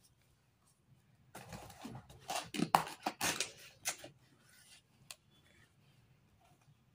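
Cardboard scraping and rustling as a small cardboard box is pulled out of a corrugated shipping carton: a cluster of scrapes and knocks lasting about three seconds, loudest in the middle, followed by a single faint click.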